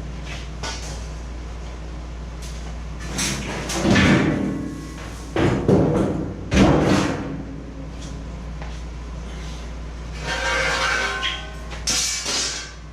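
Steel wagon-frame parts being handled and moved: a few loud clanks and scrapes about four and six to seven seconds in, a ringing scrape of metal on metal near ten seconds, and another clatter near the end, over a steady low hum.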